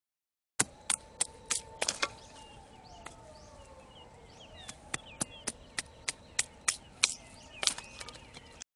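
Wood bonfire crackling with sharp, irregular pops, about twenty in eight seconds. Faint bird chirps and a faint distant wailing tone that slowly falls and rises again sit underneath.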